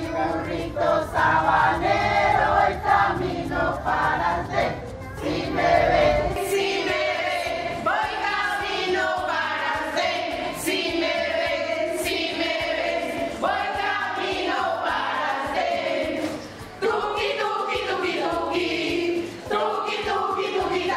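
A group of women singing together in chorus.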